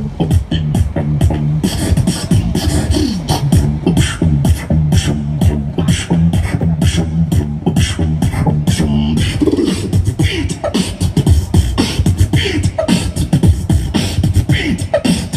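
Beatboxing into a handheld microphone played through a portable amplified speaker: a fast, even rhythm of sharp percussive mouth sounds over deep bass tones.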